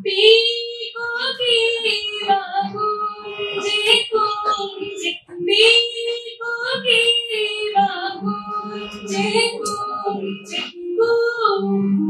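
A woman singing in long, held notes to harmonium accompaniment, the harmonium sounding steady sustained chords under her voice.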